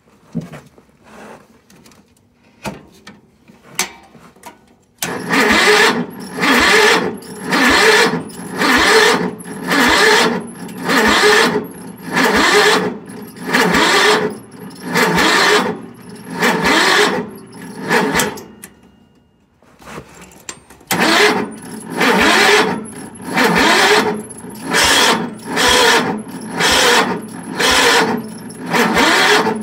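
Cub Cadet garden tractor engine being cranked over by its starter on starting fluid, labouring in slow, even surges about once a second. It begins about five seconds in after a few faint clicks, stops briefly, then cranks again.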